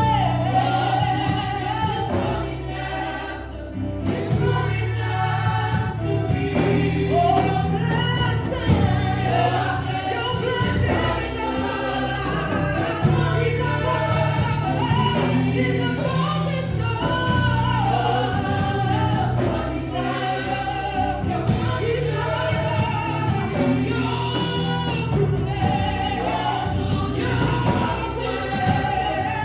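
A choir and congregation singing a gospel worship song over live band accompaniment with a steady bass.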